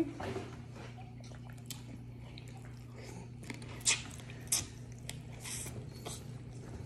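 Close-up eating sounds: chewing and the wet squish, clicks and crackles of hands picking through a boiled seafood spread of crab and shrimp, a couple of sharper clicks about four seconds in. A steady low hum lies underneath.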